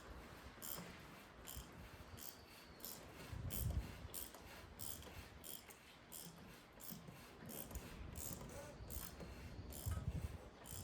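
Plastic oil filter cover being screwed onto the oil filter housing of a BMW N46 four-cylinder engine, giving a run of light, evenly spaced clicks about two a second, with a couple of dull knocks.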